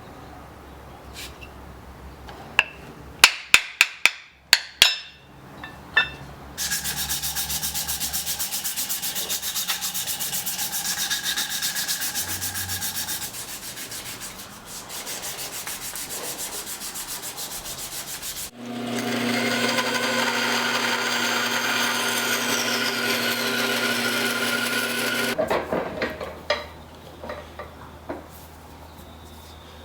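A handful of sharp taps, then a power tool grinding or sanding in two long runs, the second with a steady motor hum under the grating.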